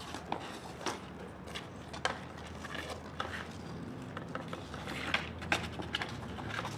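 Sharp clacks of street hockey sticks striking a ball and the asphalt: a few spaced apart, then several in quick succession about five seconds in.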